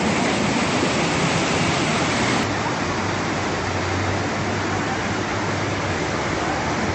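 Fast-flowing floodwater rushing, a loud, steady, even roar of water.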